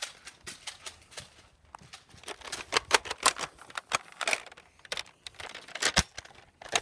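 Quick footsteps crunching over dirt and dry leaves, heard as an irregular run of clicks and crunches, with knocks from the phone being handled. It is busiest from about two and a half to four and a half seconds in.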